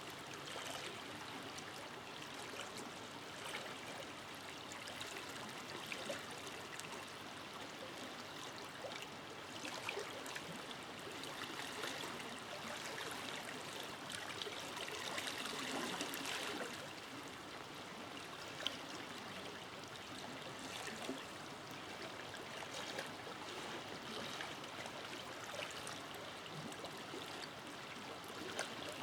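Forest river flowing, a steady rush of running water with small splashes and trickles.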